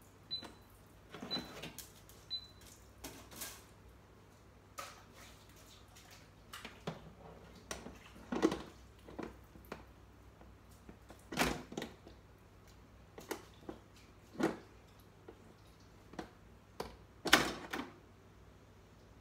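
Metal rotisserie skewers clacking and knocking against the inside of an air fryer oven while a skewered pork loin is fitted into place: scattered clicks, knocks and a few louder clatters. Three short high beeps near the start.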